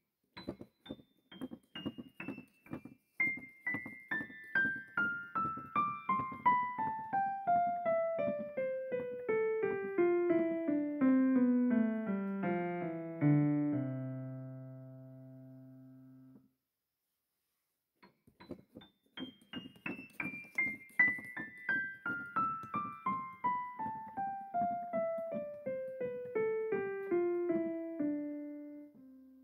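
Solo piano music: a long run of notes falling steadily in pitch, settling on a held low chord about halfway through. After a brief silence a second descending run begins.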